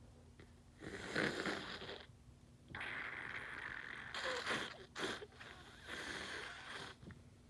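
A person with a head cold blowing a congested nose, about four long, rasping blows with short pauses between.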